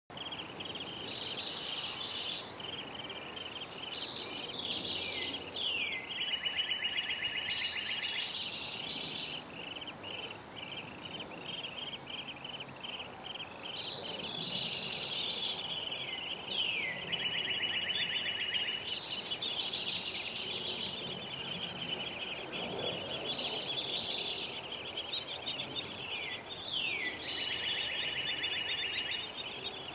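Northern cardinal singing three song phrases, each of slurred notes followed by a fast run of repeated notes, about ten seconds apart, over a steady high, faint chirring.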